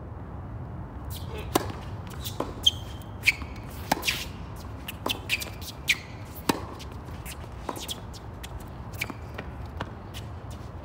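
Tennis rally on a hard court: racquets striking the ball and the ball bouncing, a sharp pop every second or so, with a few short squeaks of tennis shoes on the court.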